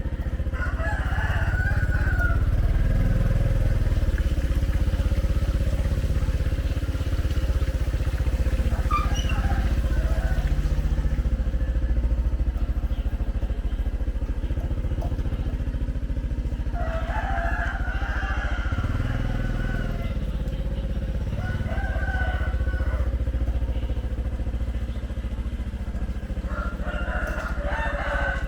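Steady low rumble of a motor vehicle engine, with a rooster crowing several times.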